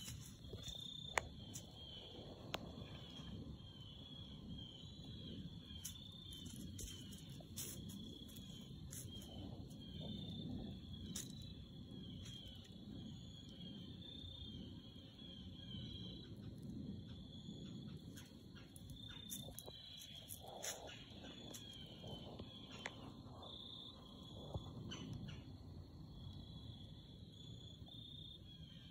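Crickets chirping in a steady, faint, high-pitched chorus, with a low uneven rustle beneath and a few sharp clicks.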